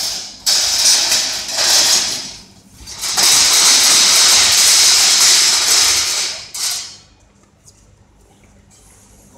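Compressed gas jet hissing loudly in several short bursts and then one long blast of about three and a half seconds, which cuts off about seven seconds in.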